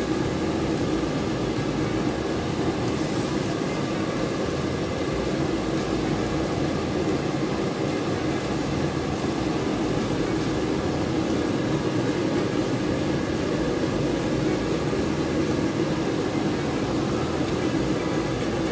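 Steady whirring hum of a motor-driven fan, even throughout, with a short hiss about three seconds in.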